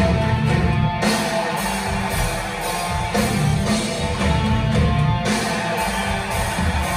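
Gothic doom metal band playing live: distorted electric guitars, bass and drum kit, loud and continuous.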